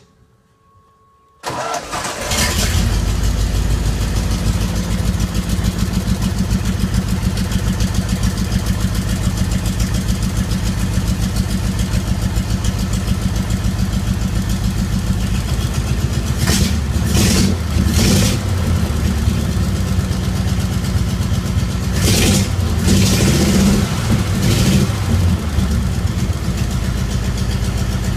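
Engine of a circa 1941 Hillegass midget race car starting up about a second and a half in, then running at idle, with a few quick throttle blips in the second half.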